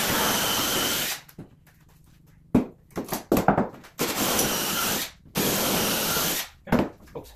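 Cordless drill boring holes through a wooden door frame in three bursts of about a second each: near the start, about four seconds in, and again soon after. A few sharp knocks and clatter fall between the bursts.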